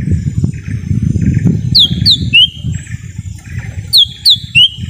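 Cucak ijo mini, a small leafbird, calling. Twice, about two seconds apart, it gives a quick run of three sharp whistled notes, the first two falling and the last rising, with scratchy buzzing notes between the runs. A loud low rumble runs underneath.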